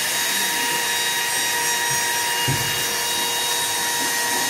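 Electric woodworking power tool running steadily with a high whine while wooden cutting boards are sanded and shaped. A dull thump about two and a half seconds in.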